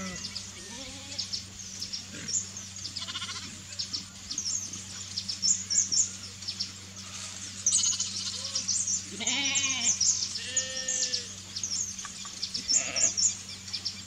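Sheep bleating, a few wavering bleats with the loudest pair about nine and ten seconds in. Small birds chirp high and briefly throughout.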